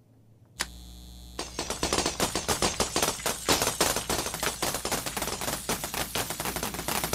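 Cartoon electrocution sound effect as a string of Christmas lights is plugged in: an electric hum switches on about half a second in, then rapid crackling zaps, many a second, start up about a second later and keep going.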